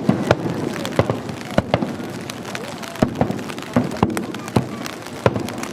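Fireworks shells bursting overhead: about a dozen sharp bangs at uneven intervals, some close together in pairs.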